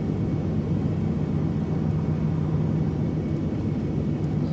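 Ram 4x4 pickup under way: steady low engine and road rumble.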